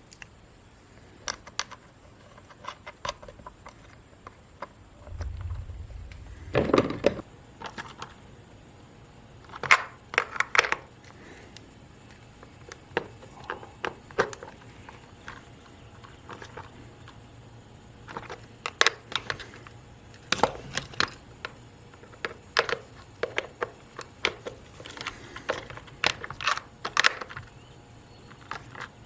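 Scattered clicks, taps and small knocks of hands handling tools and small parts at a workbench, some in quick clusters, with a brief low rumble about five seconds in.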